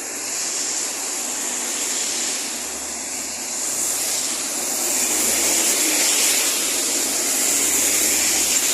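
Road traffic on a wet road: steady tyre hiss and engine noise as a bus goes by, swelling and easing gently.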